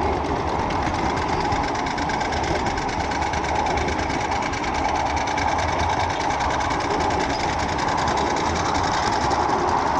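A miniature ride-on railroad car rolling along the track, its wheels making a fast, steady mechanical clatter. Wind rumbles on the microphone.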